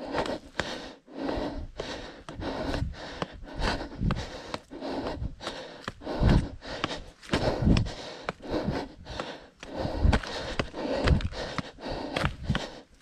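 A trail runner's hard breathing and footsteps on a steep uphill trail, heard close on a chest-mounted camera, with a steady run of uneven strokes and heavier thumps every second or so.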